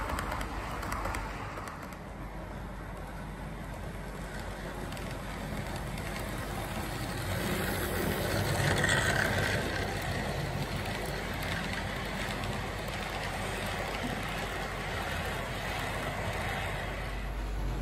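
Model train rolling past on its track: a steady rumble of wheels on rail and the locomotive's motor, loudest as the locomotive passes close about halfway through.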